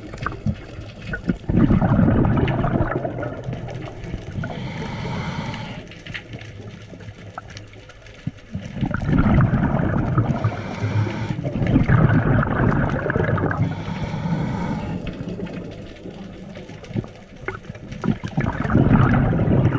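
Seawater sloshing and bubbling around a camera in the water, coming in loud surges with quieter stretches between.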